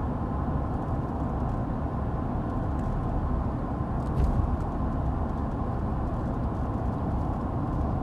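Steady road noise and engine hum of a car in motion, heard from inside the cabin, with a faint knock about four seconds in.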